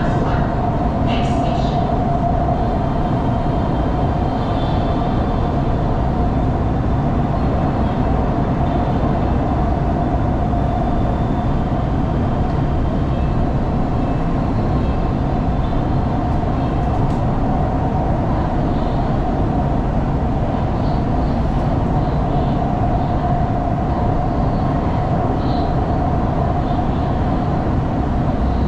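Changzhou Metro Line 1 train running along the line: a steady rumble of wheels on rail with a constant hum from the running gear.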